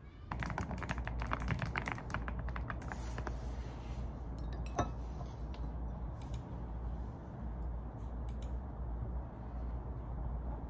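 Fast typing on a computer keyboard for about three seconds, then only an occasional key click, with one brighter clink about five seconds in.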